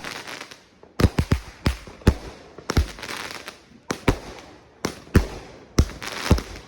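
A 16-shot consumer firework cake firing: a rapid series of sharp bangs, a dozen or so, with a hissing crackle between them.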